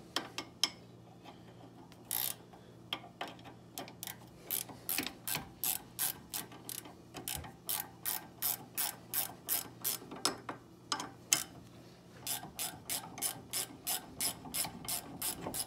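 Hand ratchet clicking steadily, about three clicks a second, as it backs out an already loosened 18 mm brake caliper bolt. There is a short pause about two thirds of the way through before the clicking resumes.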